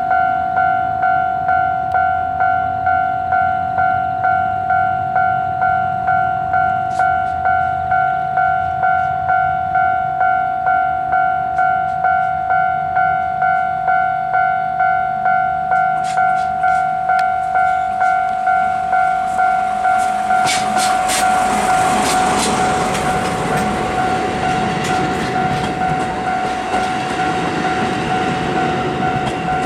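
Japanese level-crossing alarm ringing in an even two-tone ding about twice a second. From about 20 s in a train passes over the crossing, wheels rumbling and clacking over the rail joints beneath the continuing alarm.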